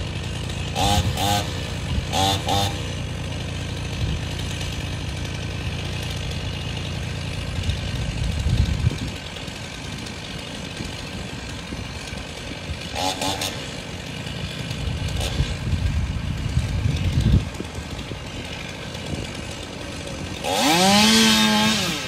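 Two-stroke chainsaw running, revving up to a high steady pitch near the end as it cuts.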